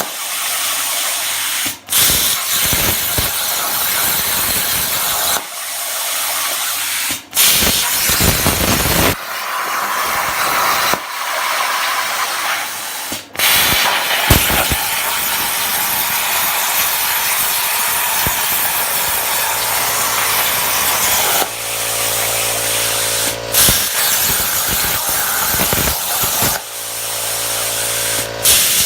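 Plasma cutter torch on a CNC table hissing steadily as it cuts steel, the arc cutting out briefly about five times between cuts and restarting. A low buzzing hum comes in twice near the end.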